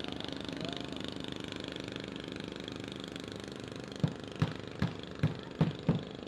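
A small engine running steadily at idle. About two-thirds of the way in come six sharp knocks in a quick, even series.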